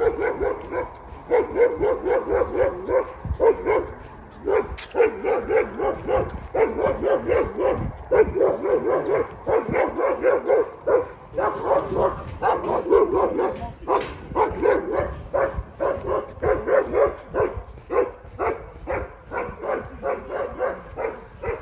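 Chained German shepherd guard dog barking angrily without letup, in quick barks about two to three a second with brief breaks.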